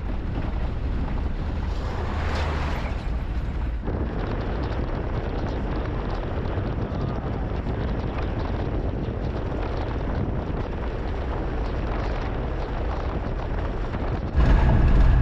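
Steady wind rumble on the microphone of a moving vehicle: a dense rushing noise with no pauses.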